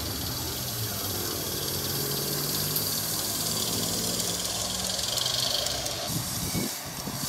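Garden-scale model steam tram locomotive running past with its train of coaches and wagons: a steady hiss over a low hum that fades out about five seconds in.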